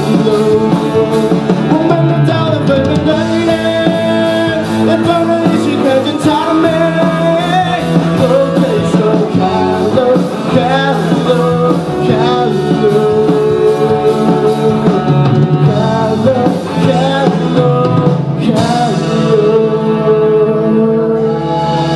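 Live rock band playing: a male lead singer over electric guitar and drums, with others on stage singing along.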